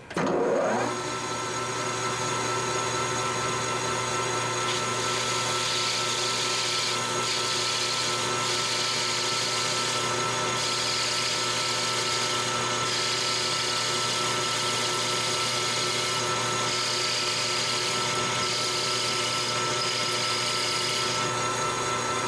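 Metal lathe spinning up, then running steadily with its whine while a carbide insert tool cuts a steep chamfer on the end of a stainless steel bar. The cutting hiss starts about four seconds in and comes and goes in stretches until near the end.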